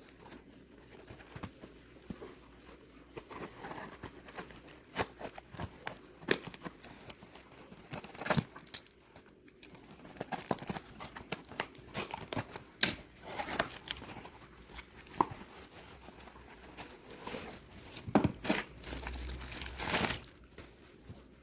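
Product packaging being torn open and unwrapped by hand: irregular rustling and crinkling with sharp tearing sounds, louder about a third of the way in, in the middle and near the end.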